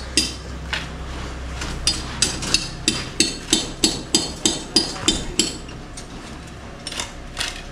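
Hammer blows striking with a metallic ring, a steady run of about three strikes a second that fades to a few lighter taps near the end.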